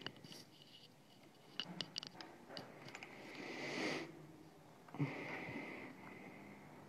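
A person breathing in audibly through the nose: faint small clicks, then a long sniffing breath that swells and stops sharply, and a shorter breath a second later.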